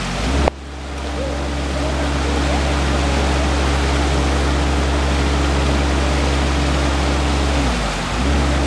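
Crane's engine revving up and holding at high revs, dipping briefly and picking up again near the end, over the steady rush of the river in flood.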